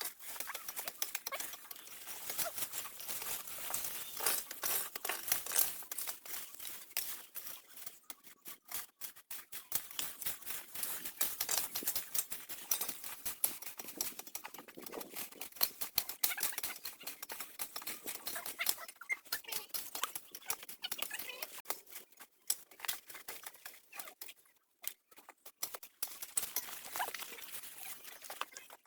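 Dense rustling and crackling of dry material being handled, a fast run of small clicks and scrapes that thins out briefly twice.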